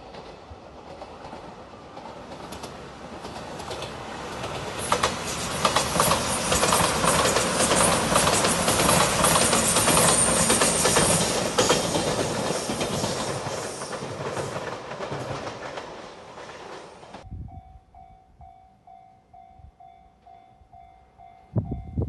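The Shiokaze limited express, a five-car electric train in Anpanman livery, passes by: wheels clicking over the rail joints as it approaches, loudest in the middle, then fading. After a sudden cut, a level-crossing warning bell rings in a steady, even rhythm, with a thump just before the end.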